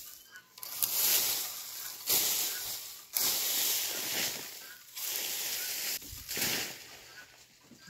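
Uprooted weeds and dry soil rustling and scraping in about five strokes of a second or so each, as the weeds are scraped up and shaken to knock the soil off them.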